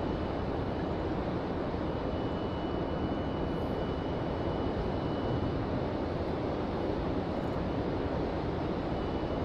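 Steady, even rushing noise of water pouring through a river dam, with a faint, thin, high steady whine over it.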